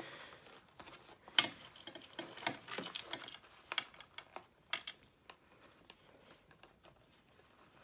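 Card stock and ribbon being handled: scattered light clicks, taps and rustles of paper as ribbon is wrapped around a small card treat holder, with one sharp tap about one and a half seconds in. The handling grows quieter in the last couple of seconds.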